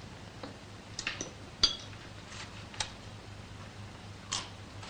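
Cutlery clinking against plates during a meal: about half a dozen scattered, sharp clinks, the loudest about a second and a half in, over a faint steady hum.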